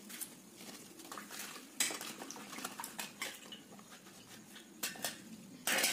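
Large leaves being handled and laid out on a concrete floor: irregular rustles and light clicks, with a louder rustle about two seconds in and a longer one near the end.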